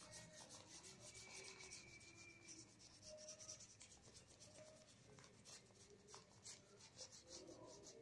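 Faint, repeated short strokes of a paintbrush rubbing across watercolour paper, several a second.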